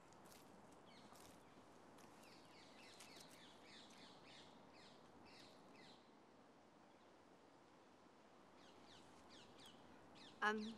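Faint bird calls, a scatter of short high chirps over quiet ambience, thinning out midway and returning. Near the end a woman's voice says a short word.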